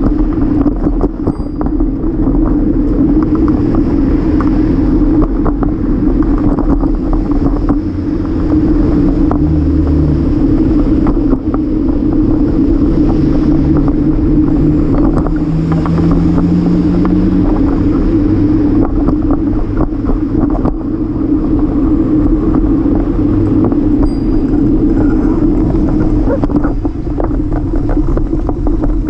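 Steady rolling and wind noise from a folding bike riding over a concrete sidewalk, picked up by a camera mounted on the bike, with a constant hum and small bumps. City traffic passes alongside, and a passing vehicle's engine note rises about halfway through.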